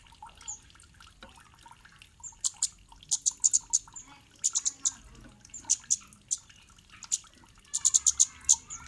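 Cit kemade bird calling: short, sharp, very high chips, some single and some in quick runs of several, the fastest run near the end, over fainter lower chirping.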